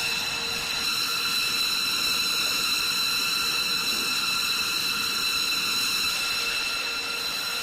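Jet engines running steadily: a high-pitched whine of several tones held over a rushing noise.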